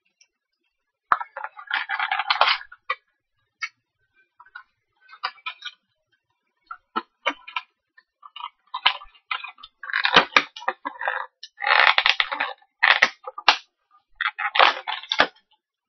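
Blind-box miniature packaging being opened and handled: irregular crinkling and crackling of plastic and cardboard, with scattered sharp clicks, getting busier and louder in the second half.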